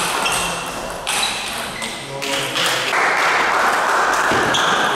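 Table tennis ball pinging off the table and bats: a few sharp, irregularly spaced clicks with a short ring, echoing in a large hall.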